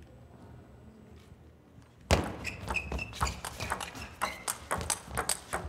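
Table tennis rally: the ball clicks sharply off the paddles and the table in quick, uneven succession, starting suddenly about two seconds in after near quiet. A brief high squeak, typical of shoes on the court floor, comes about a second into the rally.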